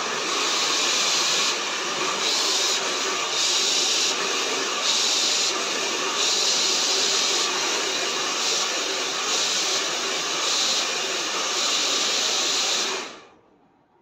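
Handheld hair dryer blowing steadily on long hair being straightened with a round brush; its rush swells and eases about once a second. About a second before the end it is switched off and dies away quickly.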